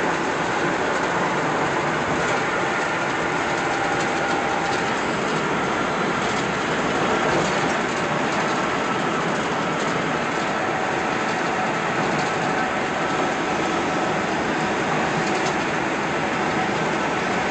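Steady road and tyre noise of a car driving at freeway speed, heard from inside the car's cabin.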